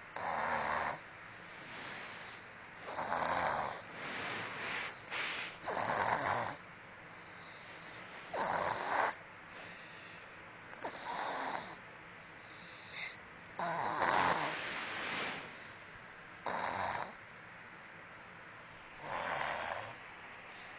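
Loud snoring from someone asleep: about ten snores in twenty seconds, irregular in spacing and length, some long and drawn out, others short.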